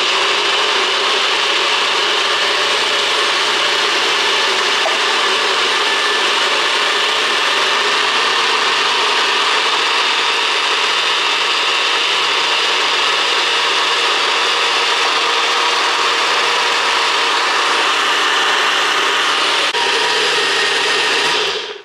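NutriBullet blender motor running steadily at full speed, blending chunks of green plantain with oats and coconut milk into a smooth liquid. It cuts off just before the end.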